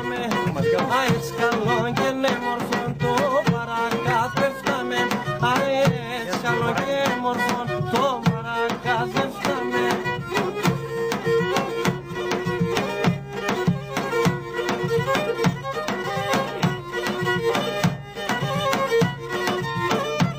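Pontic Greek folk music in an instrumental passage between sung verses: a wavering melody over steady, busy hand-drum strokes.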